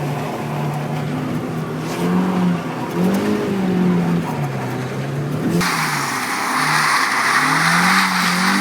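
Mazda Miata's four-cylinder engine revving up and down while the car slides sideways on a wet road. About five and a half seconds in, a loud hiss of tyres on the wet surface suddenly comes in over the engine.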